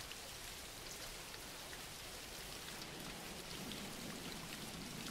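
Steady rain: a soft, even hiss with faint ticks of single drops.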